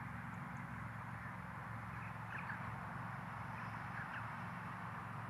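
Outdoor background of steady hiss and low hum, with faint short bird calls twice: a little over two seconds in and again about four seconds in.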